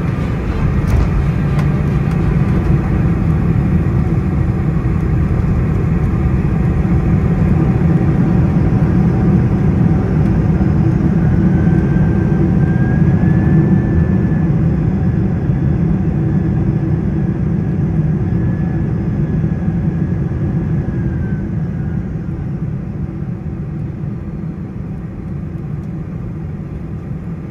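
Boeing 747-400 cabin noise on the landing roll: a loud, steady, deep rumble from the engines and the wheels on the runway. It swells toward the middle, with a faint wavering whine, then eases off over the last several seconds as the jet slows.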